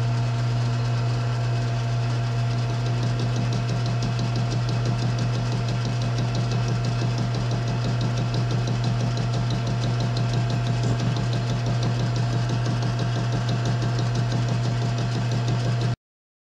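Metal lathe running under cut, taking light interrupted cuts across the corners of the workpiece: a steady motor hum with a fast, even ticking as the cutter strikes the corners each turn. It cuts off suddenly near the end.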